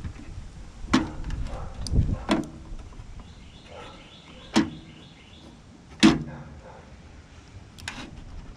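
About six sharp knocks and clicks, a second or two apart, from tools and sheet-metal parts as a microwave oven is pulled apart by hand and its wiring worked loose.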